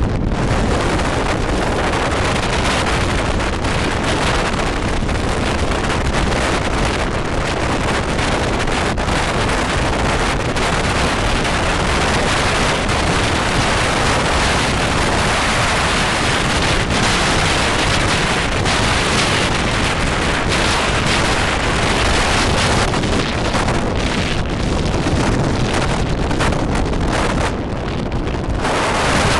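Heavy wind buffeting on the microphone of a camera held out of the window of a moving steam-hauled train: a loud, steady rush that eases slightly near the end.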